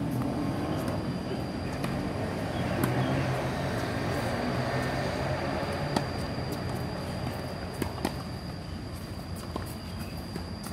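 Tennis balls struck by rackets during a rally: several sharp pops a second or two apart. A low rumble swells and fades under them in the first half, and a steady high whine runs throughout.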